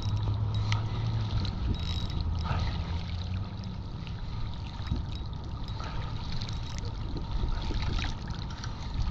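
Water lapping against a rocky pier wall, with a low steady hum that fades out about four seconds in and a few scattered small clicks.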